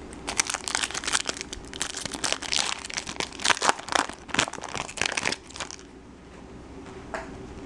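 Crinkling of a trading card pack's wrapper being handled and opened: dense, irregular crackles for about five and a half seconds, then much quieter.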